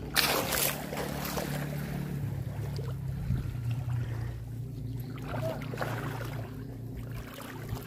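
A steady low engine hum whose pitch steps up slightly about two seconds in, over wind and the wash of the sea.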